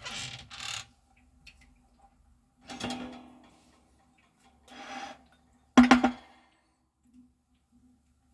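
Four short scraping and knocking sounds of kitchen utensils being handled, the loudest about six seconds in, over a faint steady hum.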